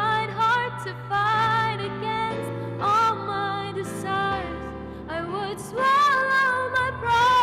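A woman singing a slow, tender song solo, her voice wavering in vibrato on long held notes, over sustained low accompaniment notes that change every couple of seconds.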